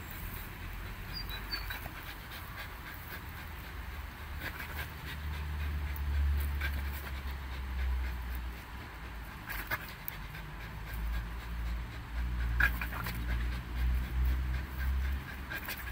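Pit bull panting and breathing hard while hanging by its jaws, with a low rumble from about five seconds in and a few sharp clicks.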